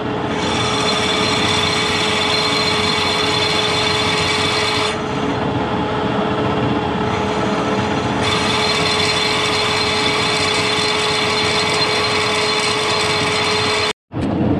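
Metal lathe running with a steady whine while a twist drill in the tailstock bores the centre of a cast flywheel. The higher cutting noise eases from about five seconds in and returns about three seconds later, and the sound drops out for a moment near the end.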